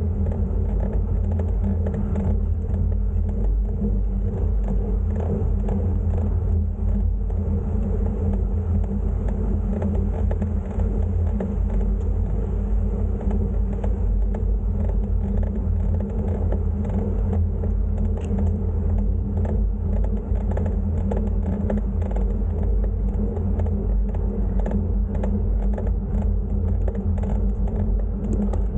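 A steady low rumble with a faint whir and no breaks or single events, typical of wind and road noise picked up by a camera on a moving bicycle.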